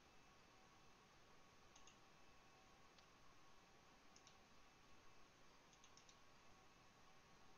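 Near silence with a few faint computer mouse clicks, some in quick pairs like double-clicks, over a faint steady electrical hum.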